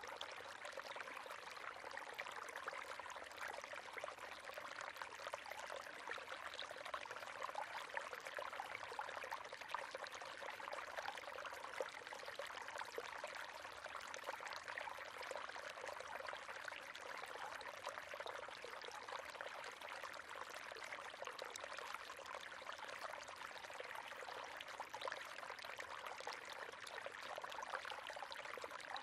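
River water running steadily over stones, a continuous babbling and splashing with no pauses.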